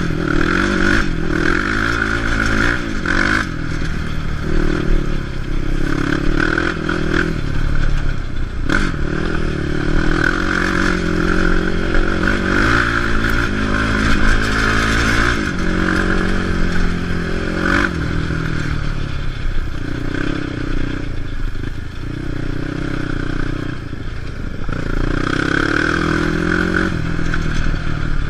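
Quad ATV engine running under changing throttle, its pitch rising and falling again and again, with rattling and knocks as the machine bounces over a rough, stony dirt track.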